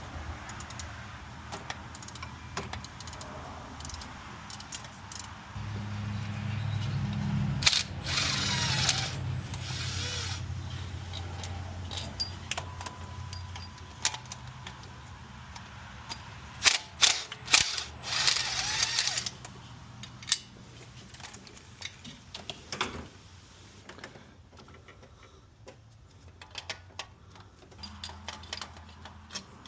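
Mechanic's tool work on a van engine: scattered clicks and clanks of tools and parts, with a low hum for several seconds in the middle and two louder rasping bursts.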